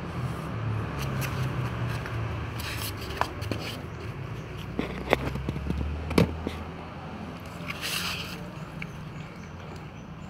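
Cats eating rice from plastic trays: scattered sharp clicks and scrapes of chewing and of the trays, the loudest about five and six seconds in, over a low steady rumble.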